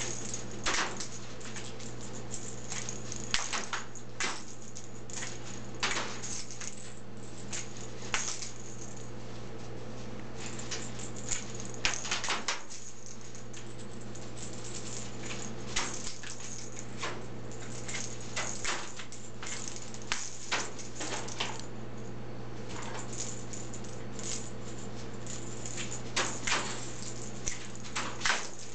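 A small plastic rattle ball, a cat toy, clattering and rattling as a raven tosses it about its cage and knocks it against the wire walls: irregular sharp clicks and knocks, a few at a time, over a steady low hum.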